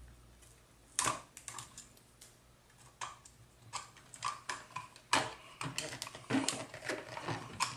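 Irregular clicks and light knocks from hands handling a plastic bullhorn: its battery cap is taken off and refitted, and its wire latch is worked. The clicks come thicker in the last few seconds.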